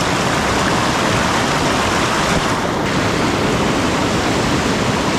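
Fast-flowing creek water rushing steadily, the stream running high after heavy rain.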